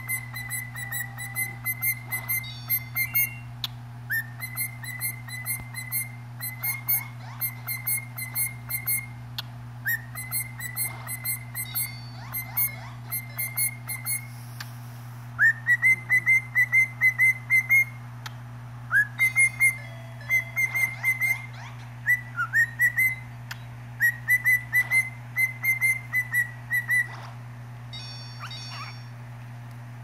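Cockatiel whistling its song: runs of short, quick whistled notes at nearly one pitch, about five a second, each run lasting a few seconds with brief pauses between. The runs are loudest in the second half and stop a few seconds before the end.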